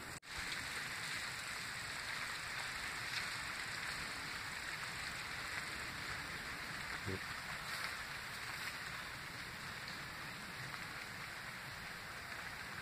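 Steady outdoor background hiss, with a faint knock about halfway through.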